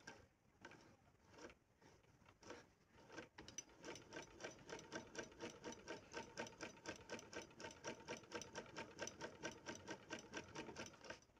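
Sarwas straight-stitch sewing machine test-stitching a scrap of cloth: a few slow, separate stitches, then from about three seconds in a steady, quiet run of mechanical clicks at about four a second that stops just before the end.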